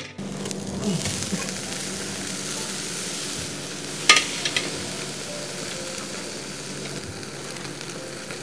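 Marinated beef bulgogi sizzling on a wire grill over a charcoal fire, a steady hiss. One sharp crack about four seconds in, followed by a couple of smaller clicks, is the loudest sound.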